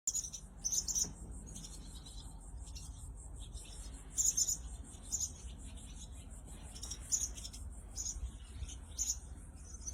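Fledgling wrens giving short, high chirps every second or few, over a steady high buzz of insects.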